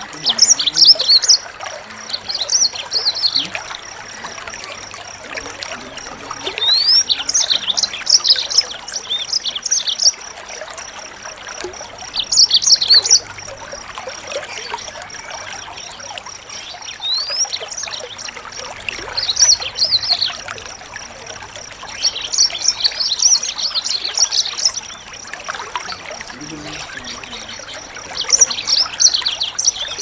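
Small songbirds singing: bursts of rapid, high-pitched twittering phrases with quick upward sweeps, coming every few seconds, some lasting several seconds, over a steady background hiss.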